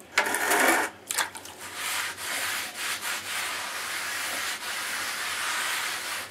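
A rag rubbing and scrubbing over wet mortar and the concrete floor around a new basement floor drain, a steady rasping rub from about two seconds in. A short, louder scuffle of the rag being handled comes at the very start.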